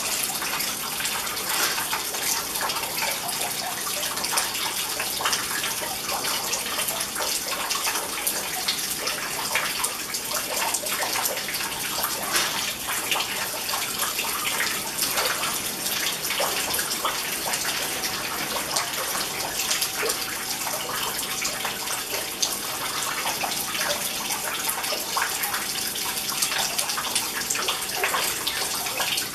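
Indoor rock-wall water fountain: a thin stream of water pouring from a ceramic pot into a shallow pool, with water trickling down the rocks, making a steady splashing.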